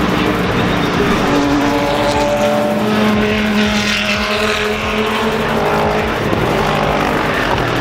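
Race car engines running on the circuit, several at once, one rising and then falling in pitch about midway as it passes.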